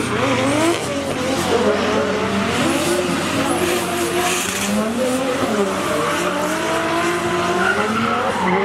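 Two drift cars sliding in tandem, their engines revving up and down with the throttle while the rear tyres screech and spin, smoking.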